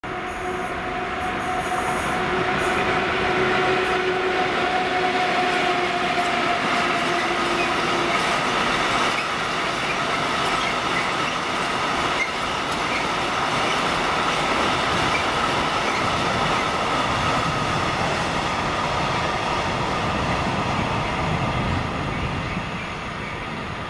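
Container freight train's wagons rolling past on the rails: a steady rumble, with thin whining tones over it for the first third. It eases slightly near the end as the last wagons go by.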